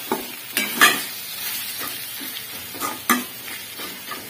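A spatula scraping and turning stuffed baby brinjals in a metal kadhai, a handful of irregular scrapes with the loudest about a second in, over the steady sizzle of the brinjals frying in oil. The brinjals are being turned once one side has fried.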